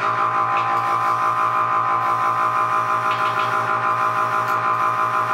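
Small Iwata Ninja Jet airbrush compressor running continuously: a loud, steady motor hum with a rapid low pulsing of about seven beats a second. It is tankless, so it runs nonstop the whole time it is switched on.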